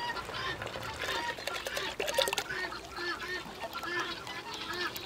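Poultry calling: a quick series of short calls rising and falling in pitch, several a second, loudest in the second half. A brief clatter of knocks comes about two seconds in.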